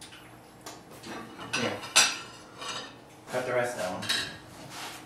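Plates and cutlery clinking and knocking as cake slices are served onto plates. There are a handful of sharp clinks, some ringing briefly; the sharpest is about two seconds in, and a cluster of clatter follows a second or so later.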